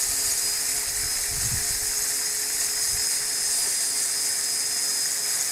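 The RC boat's high-speed brushless motor and worm-gear reduction gearbox running, a steady high-pitched whine with a fainter lower steady tone underneath.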